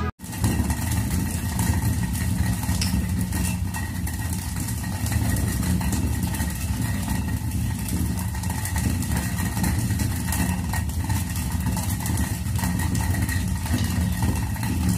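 Hand-turned stone quern (chakki) grinding dry pulses to split them into dal: the upper millstone rotates on the lower one with a continuous low, gritty rumble, mixed with a fine crackle of grains being cracked between the stones.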